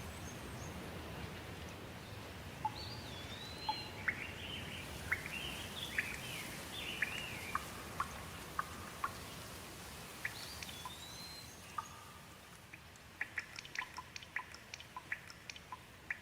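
Birds chirping and calling in a series of quick rising and falling notes over a steady hiss of rain. Near the end, a quick run of short, sharp ticks.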